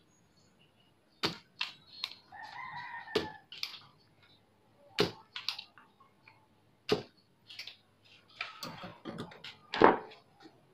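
Spring-loaded desoldering pump (solder sucker) firing over and over, each release a sharp snap, roughly every two seconds, the loudest near the end: solder being sucked off joints of a CRT TV circuit board.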